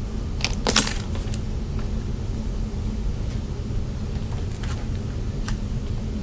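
Light clicks and a brief jingling rattle about half a second in, from hair-styling tools being handled during flat ironing, then a couple of faint single clicks later. Under them is a steady low hum.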